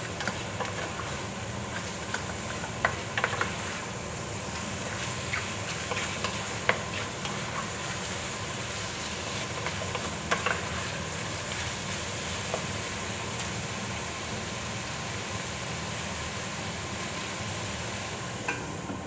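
Pork chunks with onion and garlic frying in an aluminium pot as they are stirred, a steady sizzle with the spoon scraping and clicking against the pot now and then, most often in the first seven seconds.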